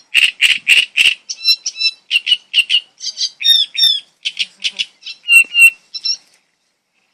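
A bird singing a fast run of short, sharp notes in changing phrases, with a pause near the end.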